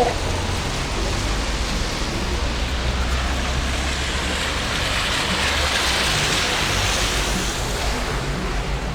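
Road traffic noise: a steady rush of passing vehicles, swelling as a car goes by about five to seven seconds in.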